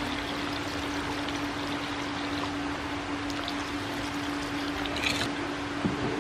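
Coconut milk pouring in a steady stream from a plastic jug into a wok of chicken broth. Near the end comes a brief scrape of a metal spatula against the wok.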